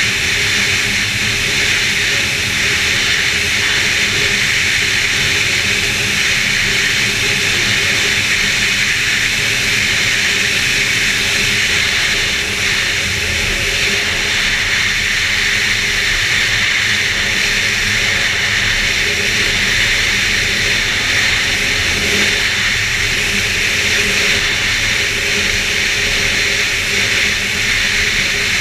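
2011 Arctic Cat F8 Sno Pro snowmobile's two-stroke twin engine running steadily under way, a constant drone with a dense rushing noise over it.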